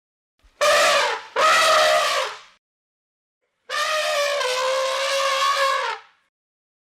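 Elephant trumpeting: two short calls back to back near the start, then one long call of about two and a half seconds held at a steady pitch.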